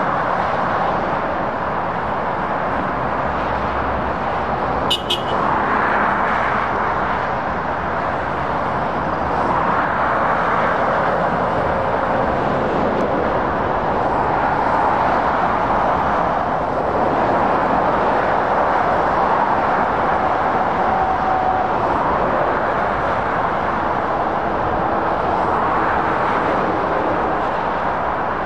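Steady motorway traffic noise: tyres and engines of lorries and cars passing at speed, swelling and easing as vehicles go by. About five seconds in there is a brief sharp sound.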